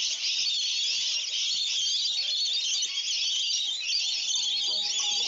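Cicada chorus: a loud, high, unbroken drone. Plucked-string music comes in faintly about four seconds in.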